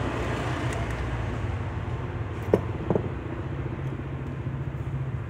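Steady hum of an electric fan, running to carry off the resin fumes. Two short knocks come about two and a half seconds in, half a second apart.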